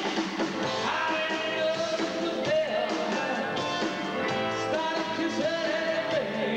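A live rock-and-roll band playing, with long held melody notes over the full band.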